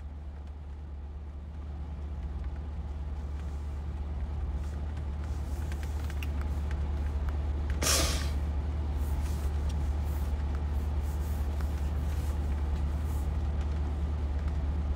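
Steady low rumble of a vehicle heard from inside a car's cabin, growing louder over the first few seconds. About eight seconds in, a single short hiss stands out as the loudest sound.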